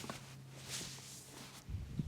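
Hands rubbing over skin and hair during a massage: soft swishing strokes, with a dull thump near the end.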